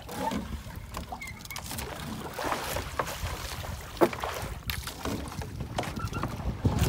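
Small fishing boat on the water at sea, water sloshing against it, with a few knocks, the loudest about four seconds in.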